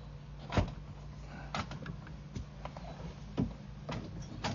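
Irregular knocks and clicks, about six in all, from a drain inspection camera and its push cable being worked against a root obstruction in the pipe, over a steady low hum. The sharpest knock comes about half a second in, another strong one a little after three seconds.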